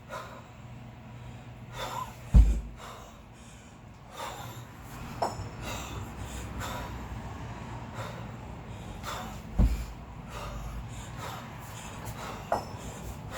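A kettlebell lifter's hard, sharp breathing, with quick forceful exhales every second or two, during a long-cycle set with two 16 kg kettlebells. Twice, about seven seconds apart, the bells make a heavy dull thump, the loudest sounds, in step with the pace of the repetitions. A steady low hum runs underneath.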